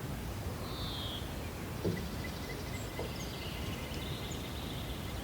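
Outdoor ambience: a steady low rumble with birds calling a few times, and a single soft bump about two seconds in.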